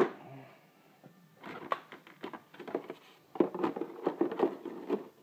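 Steel wrenches clinking and rattling against each other and the metal drawer as they are handled, in three bursts of clatter, the longest near the end.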